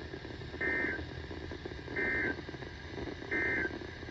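NOAA Weather Radio SAME end-of-message data signal: three short, identical warbling electronic bursts about 1.3 s apart over radio static. They mark the end of the alarm test broadcast.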